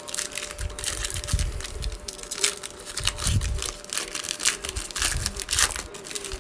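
Foil trading card pack wrapper crinkling and tearing as it is ripped open and handled, an irregular run of crackles with a few soft low thumps.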